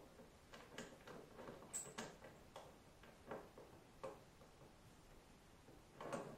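Faint, irregular clicks and light knocks of a pulley and its clamp being handled and fitted to the edge of a lab table, the loudest knock near the end.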